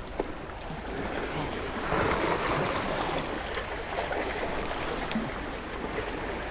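Sea waves washing and surging against the rocks of a stone jetty, swelling and easing, with one short click near the start.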